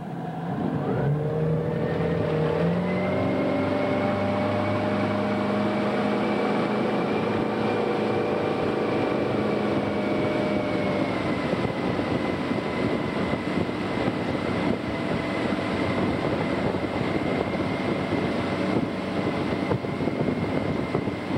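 Tow boat's engine throttling up from idle, its pitch rising over the first few seconds as it pulls a water skier out of the water, then running steadily at speed and easing slightly about halfway. Rushing wind and water hiss underneath.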